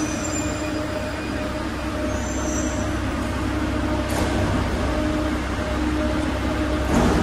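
Steady low rumble and hiss of a metro station platform, with a faint hum that comes and goes. A short click about four seconds in and a louder knock near the end.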